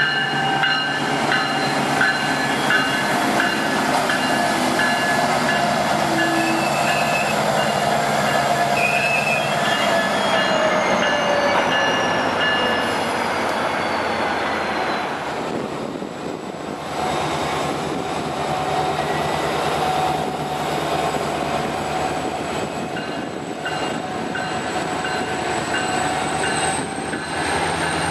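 MARC commuter train led by a Siemens SC-44 Charger locomotive passing at speed, its wheels running over the rails in a steady rush of noise with high whining tones. One of the tones slides down in pitch about ten to fifteen seconds in as the cars go by.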